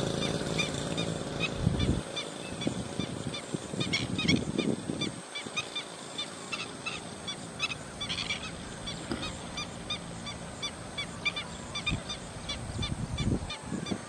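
Black-winged stilts calling over a cormorant colony: many short, sharp, high calls repeated several times a second, with a few low rumbles mixed in.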